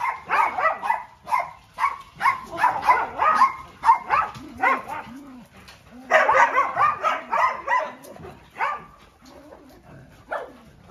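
Several dogs barking in quick runs of short barks. The barking is busiest in the first few seconds and again around six seconds in, then thins out to a few scattered barks.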